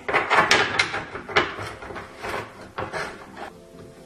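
Plastic featherboard and its fittings handled on a wooden bench top: clattering knocks and scrapes, busiest in the first second and a half, then a few single knocks.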